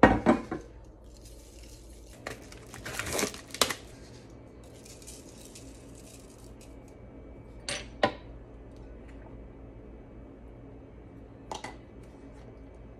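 Kitchen handling clatter: ceramic bowl, bottles and seasoning containers knocked and clinked on a stone countertop. There are a few sharp knocks at the start, a busy clatter about two to four seconds in, and single clinks about eight seconds in and near the end, with quiet room tone between.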